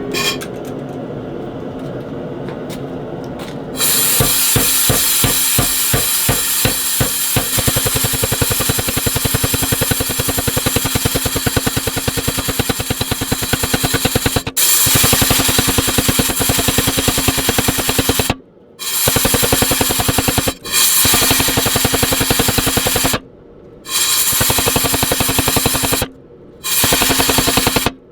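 Power hammer pounding hot steel with rapid, evenly spaced blows over a steady motor hum, starting a few seconds in and, near the end, running in bursts of a few seconds with short stops between.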